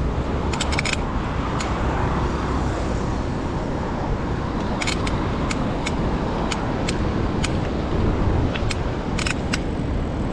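Steady rushing wind and road noise of a mountain bike being ridden, with irregular sharp clicks and rattles scattered throughout, a cluster of them about a second in and more from about five seconds on.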